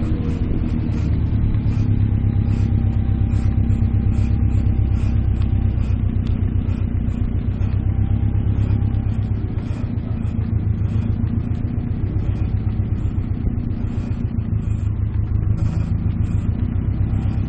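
Subaru Impreza GT Turbo's turbocharged flat-four engine running steadily with a low rumble and a fast, even pulsing: the car's unexplained 'weird noise'.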